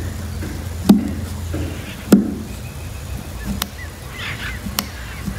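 Two sharp thumps about a second apart, with a few lighter clicks, over a steady low hum and faint bird chirps.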